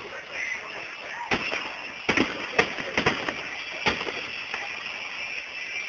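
Aerial fireworks bursting: a run of about seven sharp bangs and crackles starting about a second in and ending about four seconds in, over a steady background hiss, recorded on a phone's microphone.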